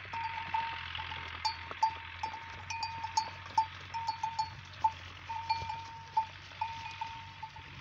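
Small bells on the necks of a walking herd of water buffalo and cattle, ringing irregularly at one pitch, several strikes a second, with light clicks in between.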